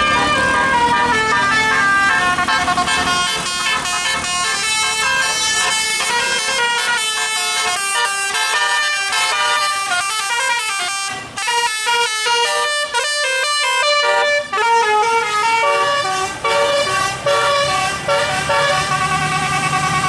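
A tour bus's 'telolet' musical air horn, a set of trumpets playing a tune in short stepped notes that runs on through the whole stretch, with a brief break about eleven seconds in.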